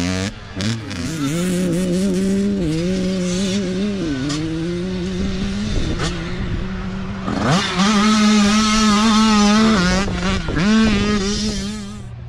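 Youth dirt bike engines revving hard and easing off in turn. About seven and a half seconds in, one revs up sharply and holds high revs for about two seconds.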